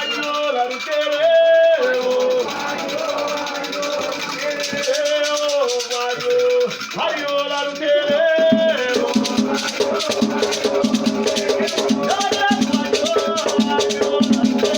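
Afro-Brazilian batuque ritual chant: singing accompanied by a shaken rattle, with a steady drum beat coming in strongly about nine seconds in.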